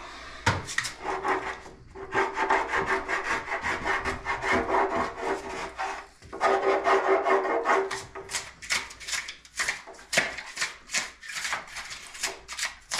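A knife blade sawing and scraping through spray foam insulation in a wall stud bay, in quick back-and-forth strokes with brief pauses about two and six seconds in.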